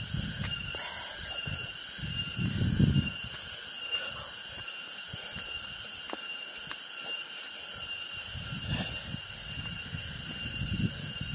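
A steady chorus of insects hums in several high, unchanging tones. Low rustles and thumps from someone walking with the camera stand out twice, the louder about two and a half seconds in and again near nine seconds.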